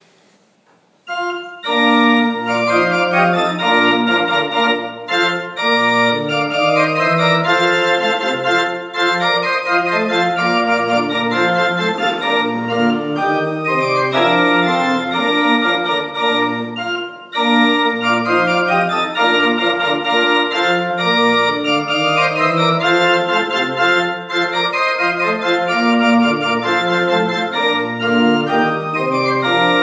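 Church pipe organ playing a march in a steady rhythm of chords and running notes. It starts about a second in and breaks off briefly a little past the middle.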